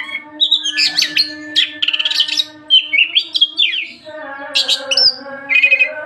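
Oriental magpie-robin (kacer) singing in full voice: a fast, varied run of clear whistles, sliding notes, chirps and rapid trills, with only brief breaks. A steady low hum runs underneath.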